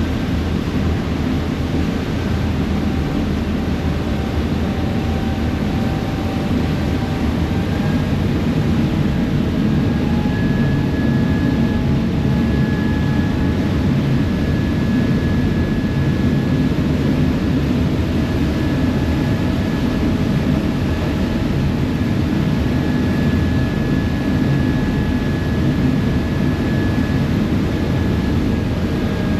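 Passenger ferry's engines running steadily under way, heard from the open deck as a continuous low drone with a faint high whine above it.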